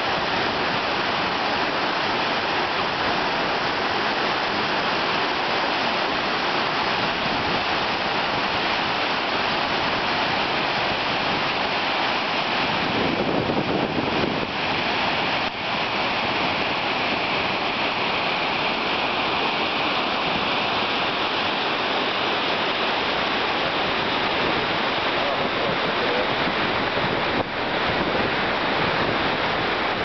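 Mountain stream rushing down a steep rocky cascade in whitewater: a steady, loud rush of water.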